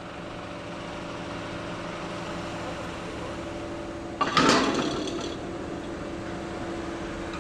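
A truck engine running with a steady hum. About four seconds in, a sudden loud noise lasting about a second rises over it.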